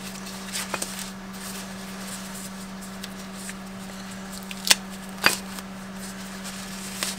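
Paper wrapping being unfolded from brake pads by a gloved hand: soft rustling and crinkling, with two sharp crackles about two-thirds of the way through, over a steady low hum.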